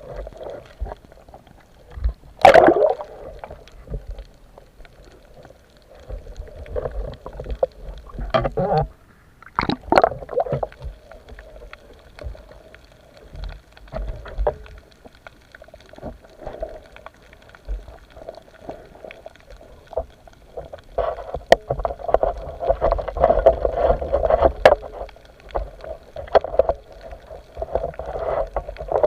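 Small boat on the water: an uneven wash of water and rumble, broken by a few sharp knocks, the loudest about two and a half seconds in.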